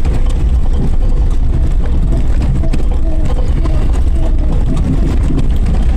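Suzuki Jimny 4x4 driving off-road: a steady, loud low rumble of engine and running gear.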